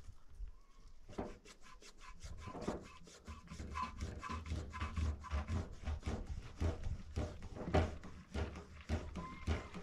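Hand-operated plastic drum pump being worked up and down in a metal barrel: a steady run of short strokes, about three a second, as liquid is drawn through the hose into a plastic jerrycan.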